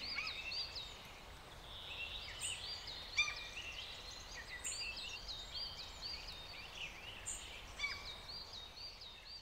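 Several birds singing and calling together, with a rapid series of short, high, arched whistled notes and scattered chirps and sharper calls over a faint hiss.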